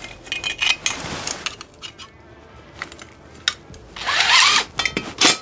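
Cordless drill driving hex-head trough screws through a metal downspout pipe strap, in short bursts. A louder burst with a rising whine comes about four seconds in, and a few clicks fall between the bursts.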